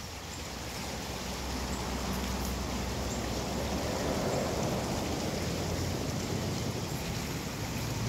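Vaterra Suburban radio-controlled crawler truck driving slowly over dry leaf litter: a steady hiss with a low motor and gear hum, growing louder over the first couple of seconds.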